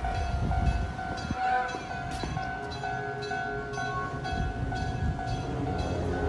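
Railway level-crossing warning bell ringing, a steady repeated ding that warns a train is approaching.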